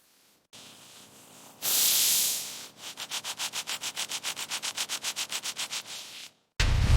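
A hiss lasting about a second, then fast, even scrubbing strokes on a car's surface, about seven a second, during car detailing. Near the end a loud, low rumble sets in.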